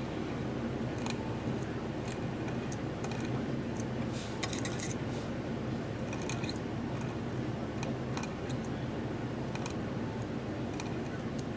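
Metal quill pen nib scratching across a glass sheet as it draws fine lines of enamel: short scratches at irregular intervals, bunched about four and a half seconds in and again around six seconds, over a steady low hum.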